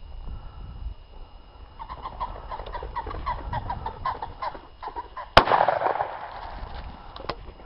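A cock pheasant cackling as it flushes, a rapid run of harsh repeated calls, then a single loud shot from a side-by-side shotgun about five seconds in. A much fainter click follows near the end.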